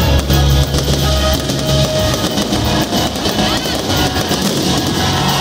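Fireworks show music with guitar and a steady bass line, mixed with the crackling and popping of fireworks bursting overhead.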